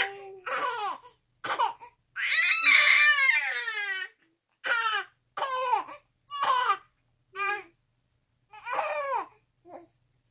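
An infant and a young girl laughing together in a string of short, high squeals, each falling in pitch, with one longer, louder laugh about two seconds in.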